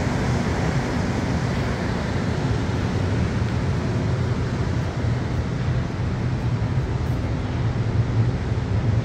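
Steady low rumble and hiss of an MR-73 rubber-tyred metro train moving slowly away through the tunnel into the tail tracks, with no changes in pitch.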